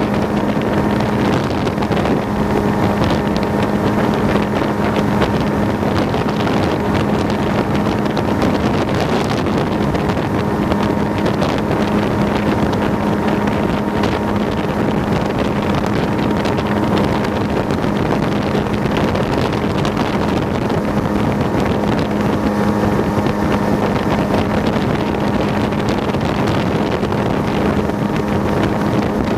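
Motorboat engine running at a steady speed, with wind noise on the microphone.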